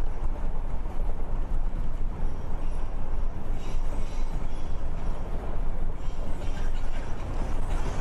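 Steady low rumble with hiss as a strong earthquake begins to shake the ground.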